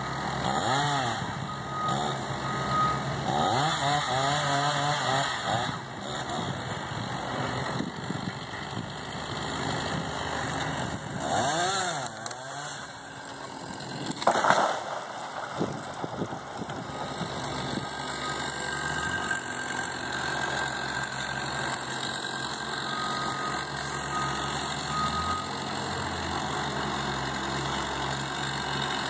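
Chainsaw revving up and down as it cuts for the first few seconds and again a little before the middle, over a steadier engine of working machinery. A single loud knock about halfway through, then the engine runs on more evenly.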